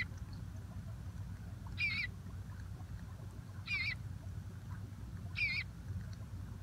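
Bluebird fledgling calling for its parents to be fed: three short calls with a wavering pitch, about two seconds apart, a hungry begging call.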